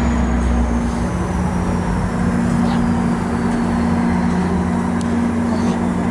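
MARC commuter train's bilevel passenger cars rolling past close by: a loud, steady rumble of wheels on rail with a steady low hum underneath.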